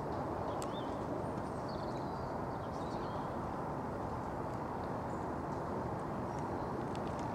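Steady rushing outdoor noise, with a few faint bird chirps above it. A horse trotting on a soft sand arena surface, its hoofbeats muffled rather than sharp.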